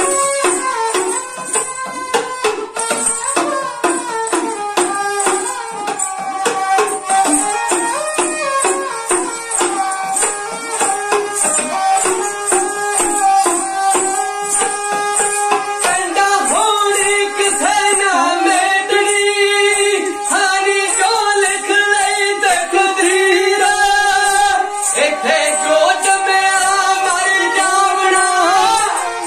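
Punjabi dhadi folk music: a bowed sarangi melody over quick, even strokes on a dhadd, a small hourglass hand drum. About halfway through, the drumming thins out and long held, bending melodic lines take over, with a man singing by the end.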